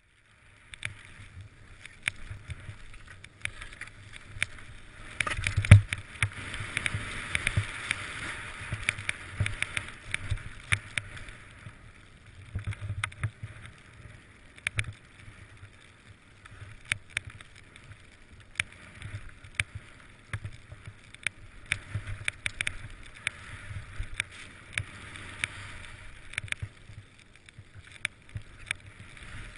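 Skis hissing and swishing through deep powder snow, in surges with each turn, with frequent sharp clicks and knocks and one heavy thump about six seconds in.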